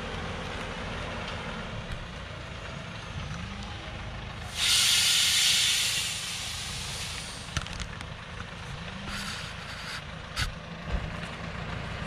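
Log truck loaded with acacia wood, its diesel engine running low and steady, with a loud hiss of compressed air released from its air brake system for about two seconds midway.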